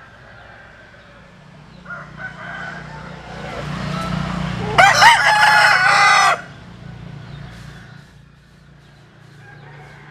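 A rooster crowing once: a loud cock-a-doodle-doo about a second and a half long, starting a little before the middle, after a quieter rising lead-in.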